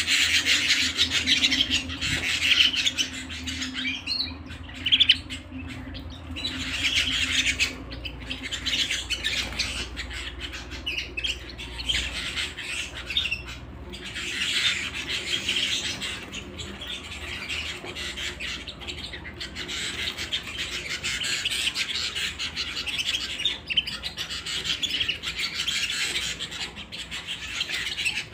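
Domestic canary singing: long phrases of rapid, high trills and rolls, broken by short pauses.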